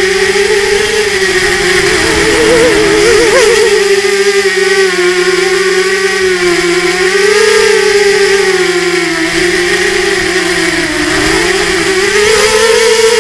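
RMRC Mudskipper 250 FPV drone's motors and propellers heard from its onboard camera: a loud, steady whine whose pitch wavers up and down as the throttle changes, with a brief warble about two to three seconds in.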